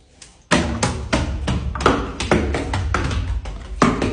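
Music with a steady percussive beat, about three knocks a second, starting about half a second in.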